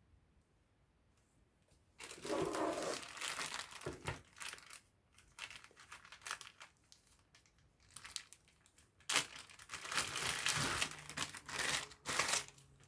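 Packaging material crinkling as it is handled, in two bouts: one about two seconds in and another from about nine seconds to near the end.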